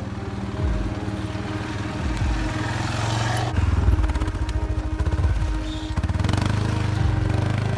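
Arctic Cat 550 ATV engine running and revving up and down, with background music.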